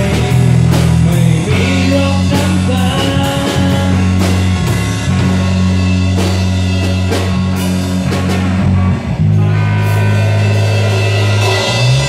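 Rock band playing live in rehearsal: electric guitar, electric bass and drum kit together, with no sung words. About nine seconds in the sound drops briefly before the band comes back in, and near the end a note slides up in pitch.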